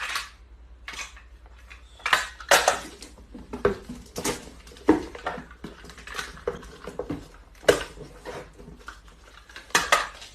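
Irregular clatter and clinks of kitchenware being knocked about, sharp single hits about one or two a second.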